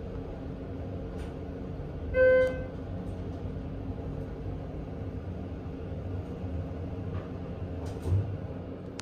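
Steady hum inside a Schindler 330A hydraulic elevator car as it travels, with one electronic chime about two seconds in and a low bump near the end.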